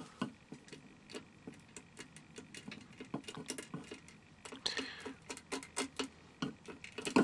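A rod tapping and prodding shards of a broken glass bulb under water, against the bottom of the container: irregular small clicks and knocks, several a second.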